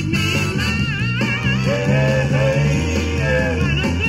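A 1960s soul vinyl single playing on a turntable: a sung vocal line over a full band backing.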